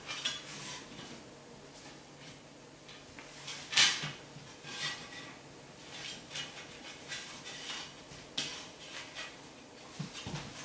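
Light clicks, taps and rattles of a toothed belt being handled and fed back into its track, with one sharper knock about four seconds in.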